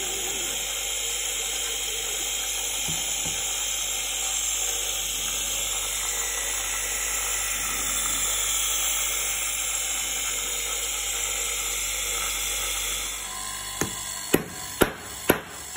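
Bench grinder running steadily while the jaws of cuticle nippers are polished on its felt wheel to take off burrs. Near the end the grinder sound drops away and four sharp metal taps follow, about half a second apart, as the nippers' joint is worked.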